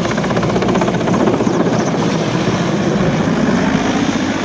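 Large transport helicopter flying low overhead, its main rotor beating rapidly over loud, steady engine noise that swells slightly about a second in.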